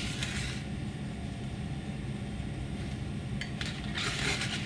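Plastic fork scraping and scooping thick washable paint in a divided plastic tray: a short scrape at the start and a couple more near the end, over a steady low room hum.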